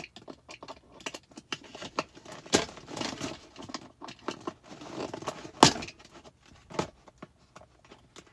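Rustling and scraping of packaging with several sharp clicks and snaps, the loudest about two and a half and five and a half seconds in, as the small ties holding over-ear headphones in a cardboard box tray are cut with a box cutter and pulled free.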